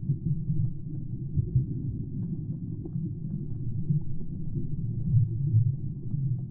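Muffled low rumble of water moving around a GoPro Hero 10 filming underwater, with faint scattered ticks over it.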